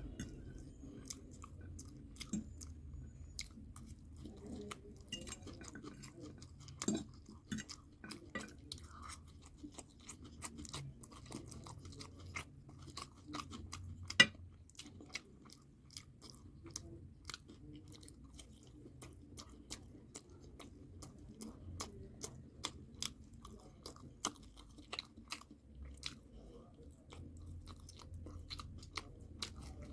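A person chewing and crunching food close to the microphone, with many small, quick mouth clicks and smacks and one sharp, louder click about fourteen seconds in.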